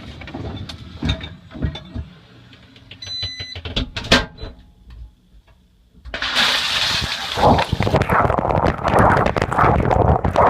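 Knocks and clatter in a dishwasher with a short electronic beep about three seconds in, then a brief hush before the wash cycle starts about six seconds in: water spray hissing and splashing loudly, heard from inside the dishwasher.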